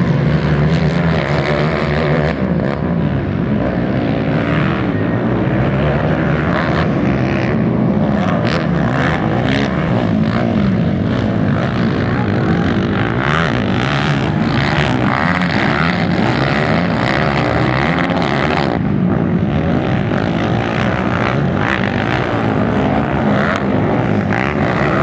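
Several racing ATV quads' engines running hard together, their pitch rising and falling continuously as the riders work the throttles.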